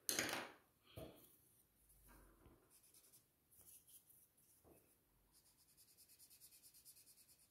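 Pencils clacking on a wooden table-top as they are put down and picked up, with a lighter knock about a second in. Near the end, soft quick rubbing strokes of a white drawing stick on paper, about six a second, as pencil shading is worked in.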